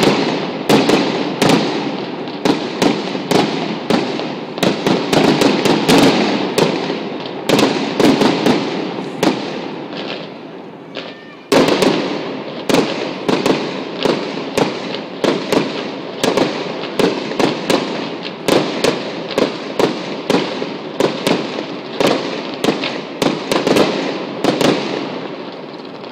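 Fireworks display: rapid volleys of shell bursts and crackle, several bangs a second with an echoing rumble between them. The barrage dies down about ten seconds in, restarts with a sudden loud burst, and fades toward the end.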